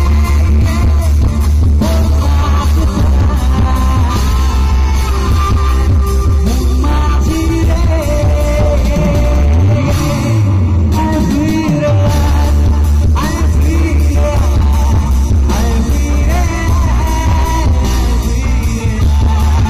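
Live band playing loudly through a PA system: electric bass, electric guitar and drums, with a man singing into a microphone. A low pitch swoops up and back down about halfway through.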